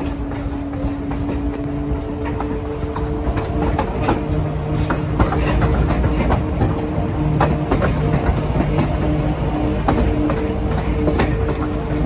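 Baldwin RS-4-TC diesel switcher locomotive working hard under load to haul a passenger train, with a steady low engine drone. Wheels click over the rail joints throughout, and it grows louder about four seconds in.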